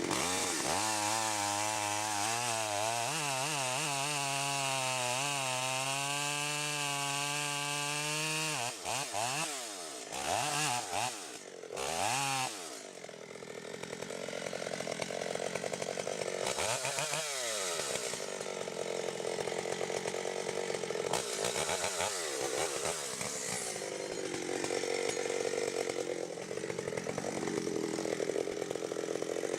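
Chainsaw engine running hard in a cut, its pitch wavering for about eight seconds. It is then throttled down and up several times in quick succession and runs on steadily, with a couple of brief drops in pitch.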